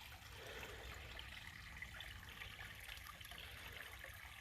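Faint, steady patter and trickle of rainwater dripping and running.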